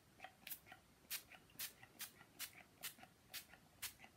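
Pump bottle of makeup setting spray spritzing onto the face: about eight short sprays in quick succession, roughly two a second.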